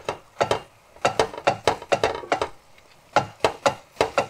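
Wooden spoon stirring sliced mushrooms in a stainless steel skillet, knocking and scraping against the pan in quick irregular strokes, about four a second, with a short pause near the middle.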